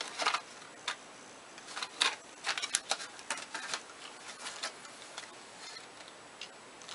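Irregular clicks and rustles of packaging being handled: a small cardboard product box being opened and its contents taken out. The handling is busiest in the first four seconds and thins out after.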